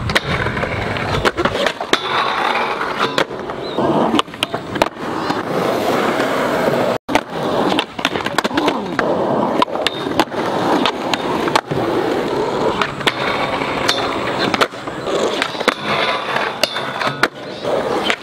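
Skateboards rolling on concrete, with sharp tail pops and board slaps on landings, and trucks and decks grinding and sliding along a steel handrail.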